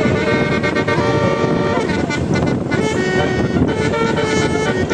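Bus telolet horn, a set of tuned air horns on a bus, playing a tune of shifting notes over steady low noise.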